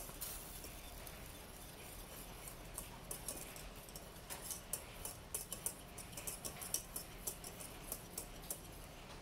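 Faint, irregular small ticks and clicks from a pan of gravy on the stove, coming more often from about three seconds in.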